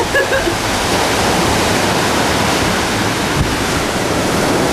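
Steady, even rushing noise, with a brief bit of a voice at the very start.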